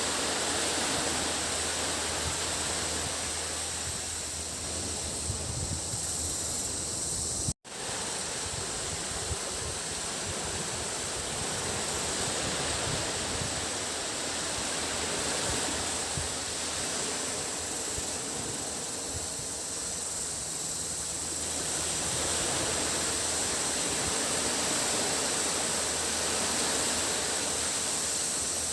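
Small waves washing onto a sandy beach, swelling and easing slowly, under a steady high drone of cicadas. The sound cuts out for a split second about seven and a half seconds in.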